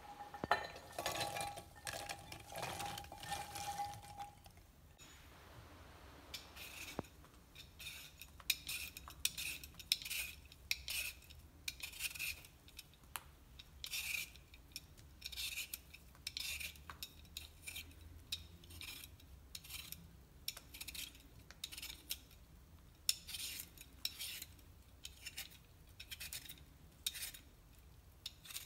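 Cut French beans tipped into a glass measuring cup, clattering against the glass with a ringing tone for the first few seconds. Then a hand peeler scrapes a raw potato in repeated short strokes, about one or two a second, to the end.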